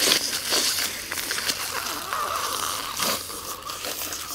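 Air being sucked hard through a thin plastic bag held over the mouth, the film pulled into the mouth and fluttering: a hissing, sputtering suction noise like a dentist's saliva ejector, loudest in the first second.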